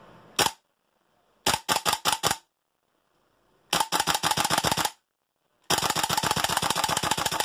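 Tokyo Marui Type 89F gas blowback airsoft rifle firing on gas alone with no BBs, the bolt cycling with each shot. A single shot comes first, then a quick string of about six, then two longer rapid strings, the last lasting nearly two seconds.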